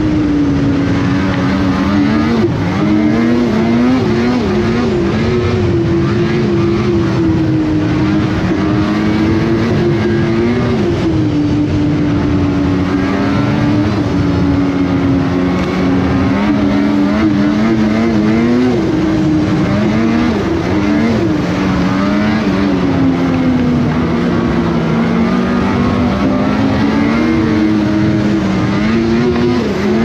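Snowmobile engine running at trail speed, its pitch rising and dipping every few seconds as the throttle is eased and opened.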